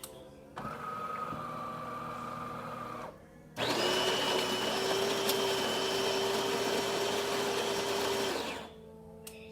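De'Longhi Perfecta bean-to-cup espresso machine starting a shot: a motor runs steadily for about two and a half seconds, then after a brief pause a louder motor whirs steadily for about five seconds and stops near the end.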